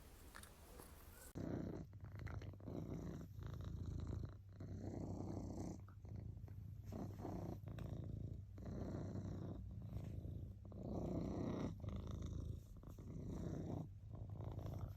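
Domestic cat purring, a low rumble that starts about a second and a half in and swells and eases in a steady rhythm with each breath.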